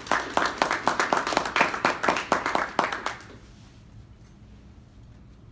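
Audience applauding, a dense patter of hand claps that stops about three seconds in.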